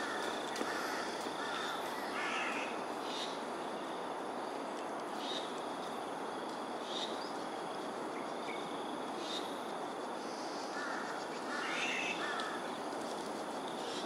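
Crows cawing in two bouts of harsh calls, three or four caws in the first couple of seconds and three more about eleven seconds in.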